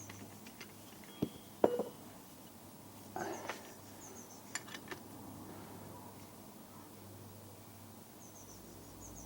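Two sharp metal clinks about a second in, from tools working a wind-back tool against a rear brake caliper piston, followed by a few lighter ticks and a short scraping sound.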